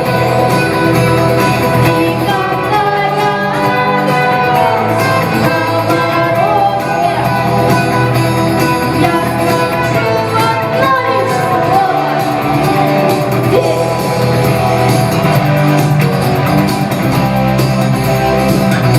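A rock song performed with singing over guitar accompaniment.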